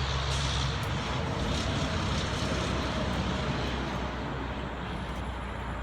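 A motor vehicle passing on a nearby road: a steady rushing noise with a low engine hum, loudest in the first couple of seconds and slowly easing off.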